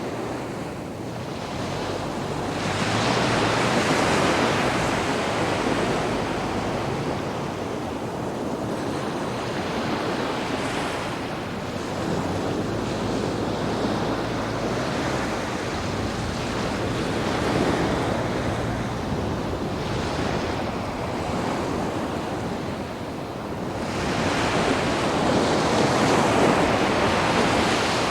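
Sea waves washing onto a sandy beach, with a steady wash of surf and two stronger surges: one about three seconds in and another near the end.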